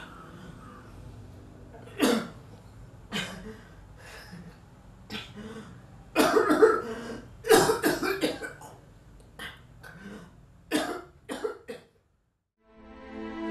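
A man's smoker's cough: a long, harsh coughing fit of a dozen or more coughs, heaviest and most bunched together in the middle. Near the end it stops, and after a brief silence sad string music begins.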